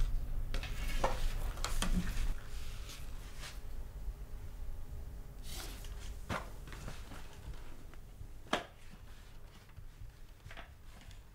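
Scattered light knocks, shuffles and rustles of a person moving about and settling in at a piano, with one sharper knock about three-quarters of the way through, over a steady low room hum.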